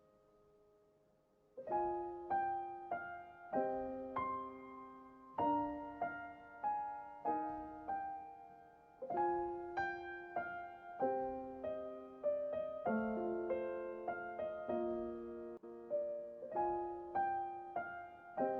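Background piano music: a simple melody over chords, with notes struck about twice a second, starting about a second and a half in.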